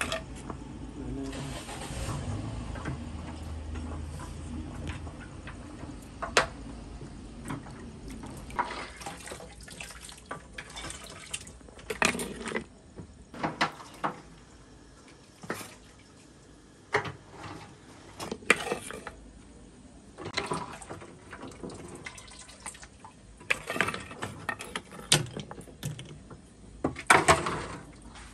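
Metal ladles stirring and scooping broth in a large steel cooking pot: liquid sloshing and pouring, with sharp clinks and knocks against the pot scattered throughout. A low hum fades out about five seconds in.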